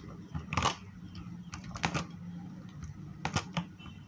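Pliers clicking and scraping on bare copper wire ends as they twist them together into a splice. There are a few sharp clicks spread over the seconds, over a low steady hum.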